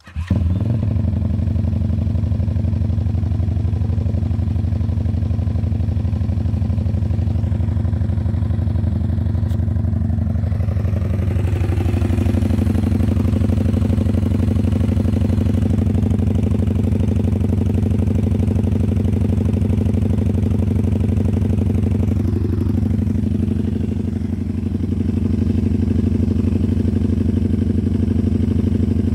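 A brand-new WPB Beast 190 pit bike's 190cc single-cylinder four-stroke engine running steadily on its first start. The pitch shifts slightly about twelve seconds in.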